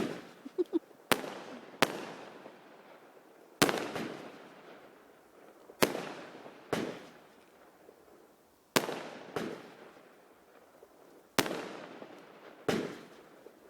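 Fireworks exploding: about ten sharp bangs at irregular intervals, a second or two apart, each trailing off in a rumbling echo.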